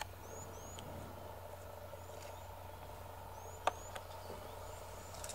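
Quiet outdoor ambience: a low steady hum under a faint background hiss, with a few short, faint, high rising chirps scattered through and a single sharp click about three and a half seconds in.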